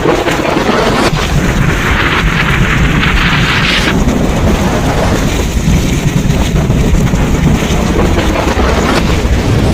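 Thunderstorm: a continuous low rumble of rolling thunder under a steady hiss of rain. The hiss grows louder and brighter from about one and a half to four seconds in.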